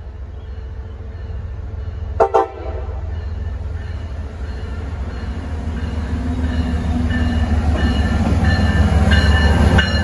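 MBTA commuter train's diesel locomotive approaching: two short horn blasts about two seconds in, then the engine and wheel noise growing steadily louder as it pulls in, with wheels clicking over the rails as the locomotive draws alongside near the end.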